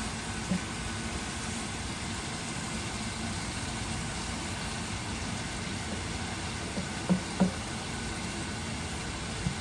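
Spiced chicken breast cooking in a pan on the stove: a steady hiss over a low hum. A few soft knocks stand out, one about half a second in and two close together about seven seconds in.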